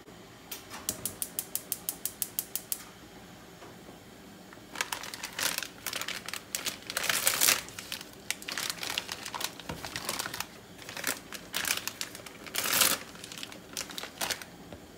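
A gas hob's igniter clicking rapidly, about eight clicks a second for some two seconds. From about five seconds in, the plastic wrapper of an instant ramen packet crinkles, with several louder crackles, as it is picked up and opened by hand.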